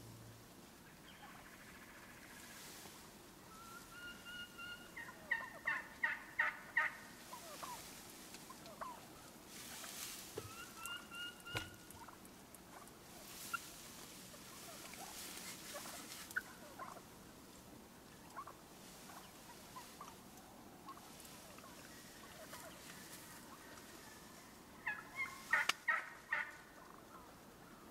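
Turkey yelps: a run of five or six loud, evenly spaced notes about five seconds in and another near the end, with a few short held notes and scattered soft single notes between, over faint rustling.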